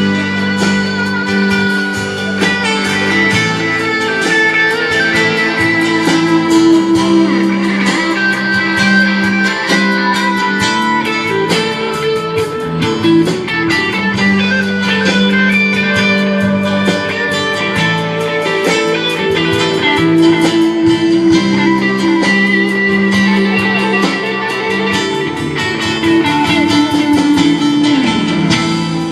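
A band playing an instrumental break: a guitar lead carrying the melody over steady bass and rhythm.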